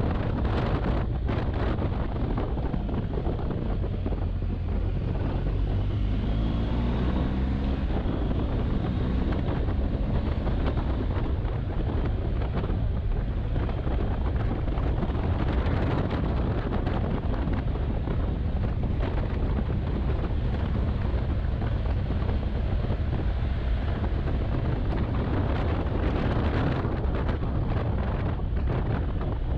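Wind buffeting the microphone on a moving adventure motorcycle, with the engine running underneath. About six seconds in, the engine's pitch shifts briefly.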